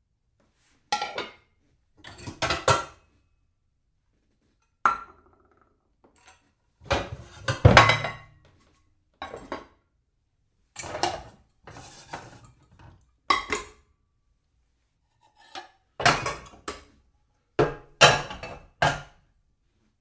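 Dishes being shuffled and knocked together, clattering in about ten short bursts of clinks separated by moments of silence.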